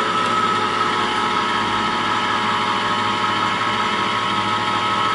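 Black & Decker Easy Cut electric can opener running hands-free, its motor turning a steel can against the cutting wheel to cut the lid. It is a steady motor hum with a high whine.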